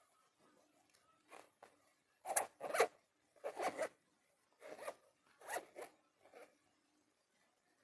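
Zipper on a hard disk carrying pouch being pulled back and forth in a series of short zips.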